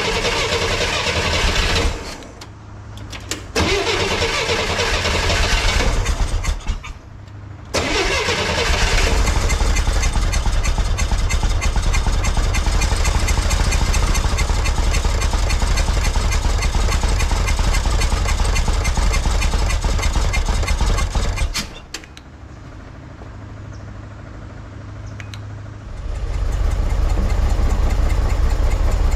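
1963 Corvair air-cooled flat-six engine being started and held on the throttle, running roughly with its speed rising and falling: it dips briefly twice, then runs strong and steady for about thirteen seconds. It drops to a quieter low idle for a few seconds and picks up again near the end. The engine is running badly with its twin carburettors out of adjustment after being resynced from scratch.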